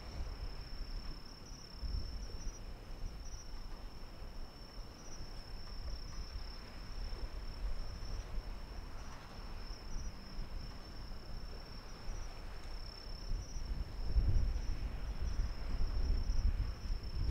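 Insects trilling steadily at a high pitch, over a low rumble that swells near the end.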